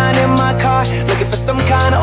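Upbeat pop song playing as background music, with a steady bass line.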